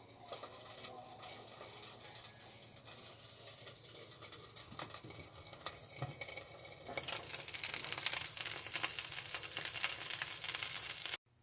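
Food sizzling and crackling in a frying pan, growing louder and brighter about seven seconds in and cutting off suddenly near the end.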